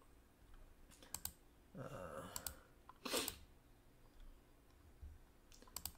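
Quiet clicks of a computer keyboard and mouse: a quick run of clicks about a second in, a few scattered ones around two to three seconds, and another quick run near the end.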